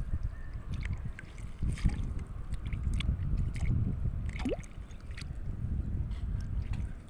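Shallow seawater sloshing and gurgling as hands work a fishing net underwater to free the catch, with scattered small splashes and clicks over a steady low rumble.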